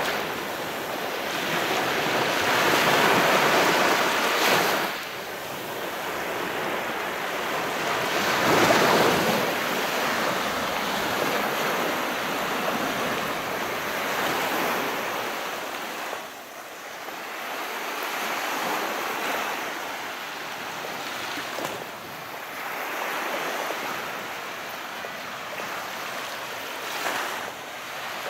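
Small sea waves breaking and washing in and out, a rushing surf that swells and falls back in slow surges, the loudest about three and eight seconds in.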